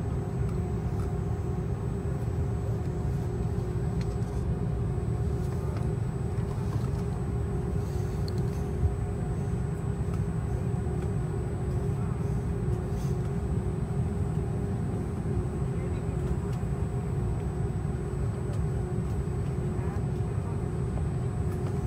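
Steady low rumble of an airliner's engines at ground idle, heard inside the passenger cabin, with a steady hum running through it.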